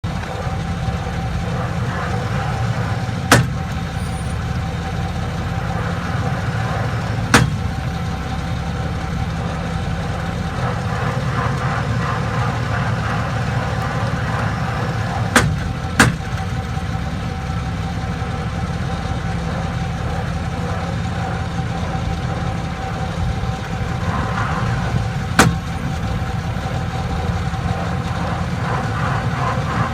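2001 Chevrolet Silverado 4x4 drivetrain running with a steady drone, broken by five sharp clicks at irregular intervals. This is the clicking in four-wheel drive that the owner traces to the transfer case.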